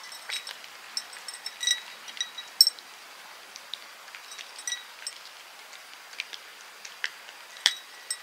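Two cats eating small treats from ceramic saucers: irregular clicks and clinks of teeth and treats against the saucers, some ringing briefly, the sharpest about two and a half seconds in.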